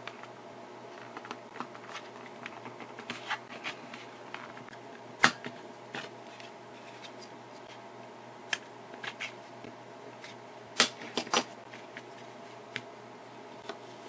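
Small plastic clicks and scrapes as a flathead screwdriver pries around the edge of a plastic remote control case. A few sharper snaps stand out, one about a third of the way in and two close together later on, as the case's molded snap-in clips let go.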